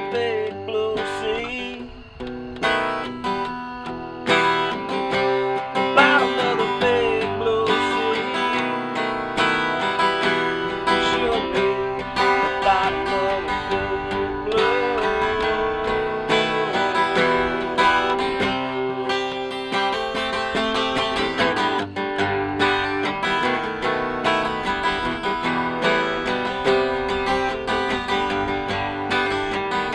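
Acoustic guitars strumming and picking a song, without singing.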